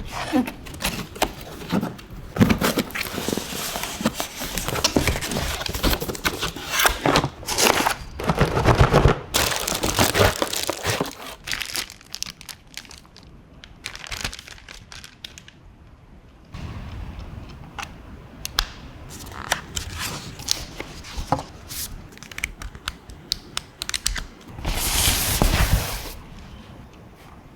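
Crinkling, rustling handling noise with many sharp clicks and knocks. It is dense in the first part, thins out around the middle, and has one louder rustle near the end.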